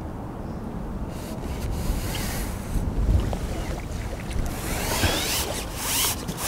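Wind buffeting the microphone, a steady low rumble, with light rustling and small clicks in the second half.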